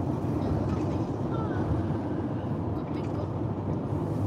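Steady low road rumble inside a moving car's cabin at highway speed: tyre and engine noise.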